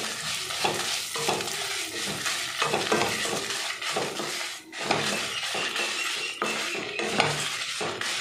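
Wooden spatula stirring coriander seeds, cumin, fenugreek and dried red chillies as they roast in a little oil in a nonstick kadai. The seeds rattle and scrape against the pan in repeated, irregular stirring strokes.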